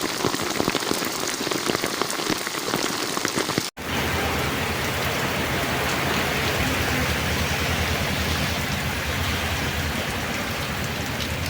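Heavy rain falling and pattering on surfaces. There is a short break in the sound about four seconds in, after which the rain goes on with a low steady hum beneath it.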